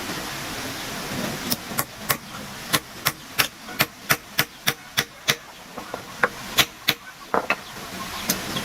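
A quick run of sharp hand-tool blows, about three a second for some six seconds, a few of the later ones ringing briefly.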